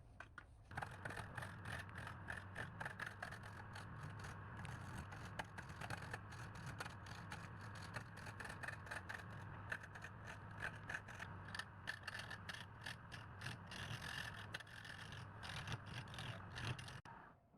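A machine running, with a steady hum and fast, irregular rattling clicks; it starts about a second in and stops shortly before the end.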